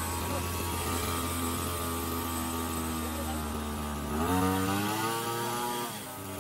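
Small two-stroke petrol engine of an old power spray pump running unevenly. Its speed sags slowly, picks up sharply about four seconds in, then weakens near the end as it struggles to run properly.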